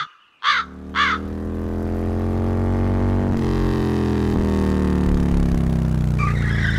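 A crow caws three times in quick succession, then a small motorcycle engine runs steadily close by, its pitch shifting slightly, until it cuts off abruptly near the end.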